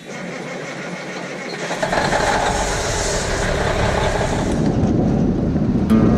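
Vehicle engine running with road noise, getting louder and fuller about two seconds in.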